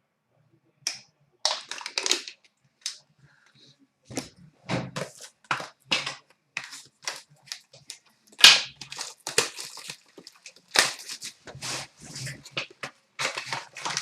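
Hockey card packs being opened and handled: foil wrappers crinkling and tearing in irregular crackly bursts, with cards rustling.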